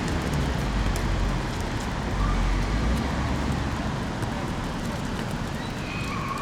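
Steady low rumble of outdoor background noise on the camera microphone, heaviest in the first half, with faint distant shouts from the pitch.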